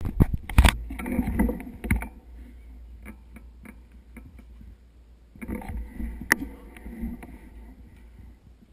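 Handling noise on the camera: knocks, taps and rubbing in two clusters, near the start and again about five and a half seconds in. A steady low wind rumble lies on the microphone between them.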